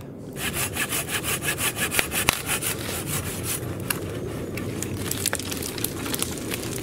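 Hand saw cutting through a dead branch from a wind-fallen tree, in quick, even back-and-forth strokes that blend into a steadier rasp after a few seconds.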